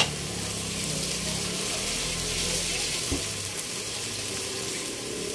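Pork ribs, onions and tomatoes sizzling steadily in a pot, a continuous hiss as the meat cooks in its own juices.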